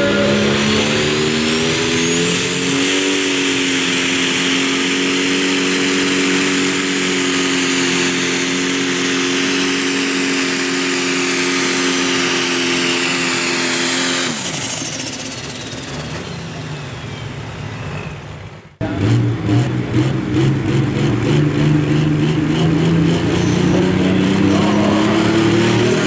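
International Harvester 1066 pulling tractor's turbocharged diesel engine running flat out under load with a steady high pitch, then cutting out about fourteen seconds in. Then a John Deere pulling tractor's diesel engine runs with a fast pulsing beat, its pitch climbing near the end.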